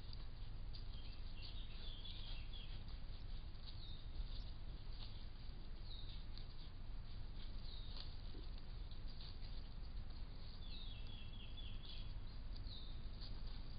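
Woodland birds calling: short, high chirping phrases of quickly repeated notes, once about a second in and again near the end, with single chirps between. Under them runs a steady hiss with scattered faint clicks.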